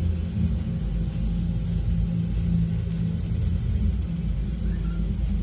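Low, steady rumble of a rooftop fireworks display, with fountains and rockets firing continuously and no distinct bangs.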